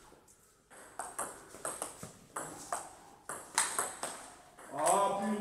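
Table tennis rally: the ball clicking sharply off the rubber-faced wooden rackets and the table in quick alternation, about three hits a second. A man's voice starts near the end.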